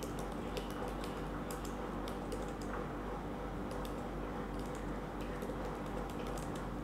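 Typing on a computer keyboard: a run of light, irregular key clicks over a steady low hum.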